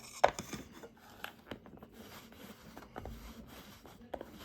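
Scattered light clicks and taps of small metal watch parts and tools being handled while a new case back gasket is fitted to a quartz Seiko 5, the sharpest click about a quarter second in.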